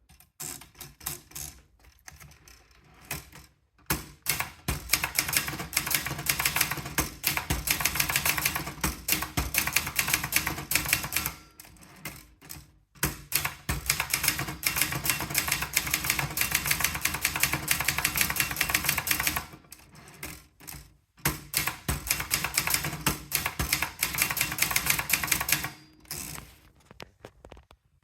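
Brother Deluxe 220 manual portable typewriter being typed on: fast runs of key strikes, broken by a few short pauses.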